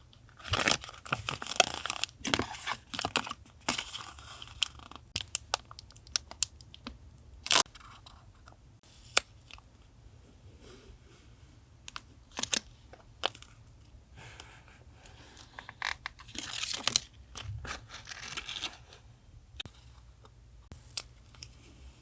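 Paper being torn and crinkled by hand while collaging, in two longer rustling stretches with sharp taps and clicks of paper between them, over a low steady hum.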